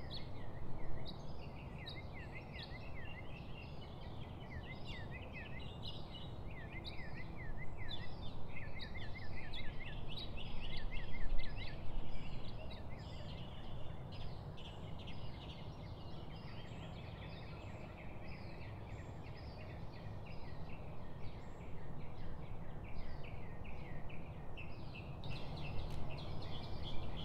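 Many small birds chirping and chattering together in quick, overlapping high notes, some repeated in rapid runs, over a steady low background rumble.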